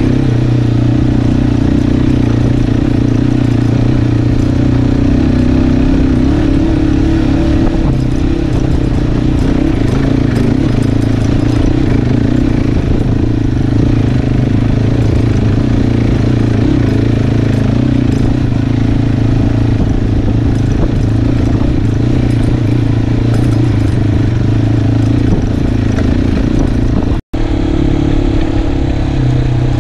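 Italika adventure motorcycle's engine running steadily under way on a rough dirt track, with the bike rattling over the rocks. The sound cuts out for an instant near the end.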